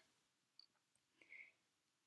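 Near silence, with a couple of faint ticks.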